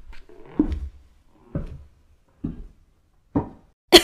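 Soft background music of single plucked, guitar-like notes, about one a second, each dying away quickly. A cough breaks in right at the end.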